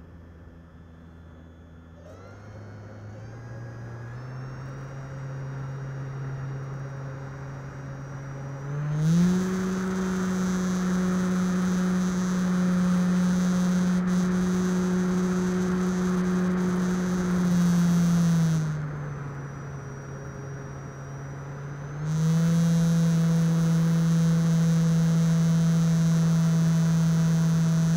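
Radio-controlled Air Tractor model plane's motor and propeller in flight, heard from its onboard camera: a steady hum that steps up in pitch over the first few seconds, goes to full throttle about nine seconds in, eases back around eighteen seconds, and opens up to full throttle again about twenty-two seconds in.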